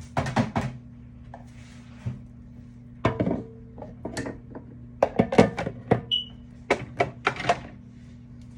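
Kitchenware being handled and set down: several clusters of sharp knocks and clinks, with one brief ringing clink about six seconds in.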